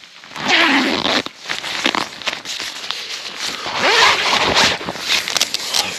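A tent door zip being unzipped in several pulls.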